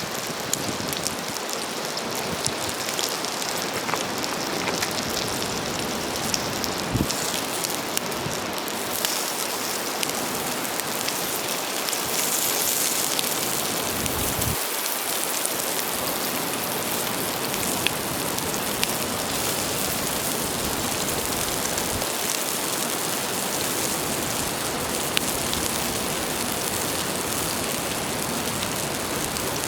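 Steady sizzling hiss with many small crackles and pops, from cooking over a campfire on an iron griddle plate.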